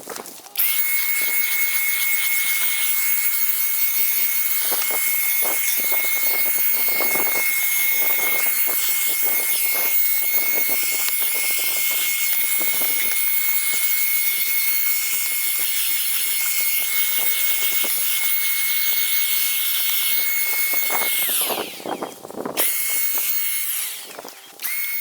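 Parkside 20V cordless handheld vacuum cleaner running, a steady rush of air with a high-pitched whine. It switches on about half a second in and off about 21 seconds in, then runs twice more in short spells near the end.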